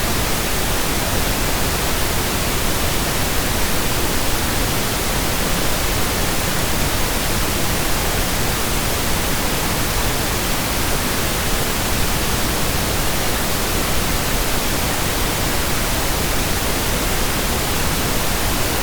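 Steady synthetic pink noise: an even, unchanging hiss spread across the whole range.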